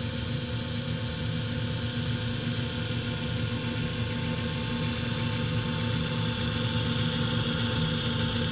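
Electric gear-drive clamp-mount drum mixer agitator running at a steady speed. Its motor and gearbox give a constant whirring hum with no change in pitch.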